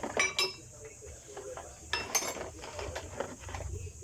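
Small metal parts and hand tools clinking and knocking against each other while a fuel injection pump is worked on: a few sharp, separate clinks, clustered near the start and again about two seconds in.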